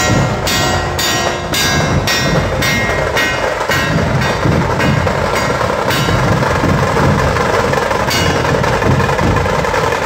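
A dhol-tasha troupe drumming: large dhol barrel drums with sharp high strikes about two and a half times a second for the first few seconds, then a denser, steady beat.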